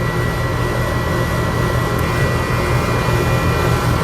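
2007 Carrier central air conditioner outdoor unit running steadily: Copeland-type scroll compressor hum under the rush of the condenser fan on its new Broad Ocean replacement motor, with a faint steady whine on top. The scroll sound is smooth.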